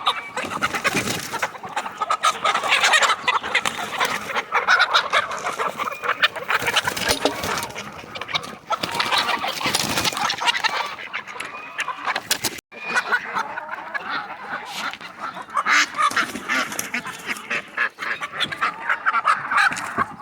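A flock of chickens clucking and squawking as they come out of the coop, with geese honking among them.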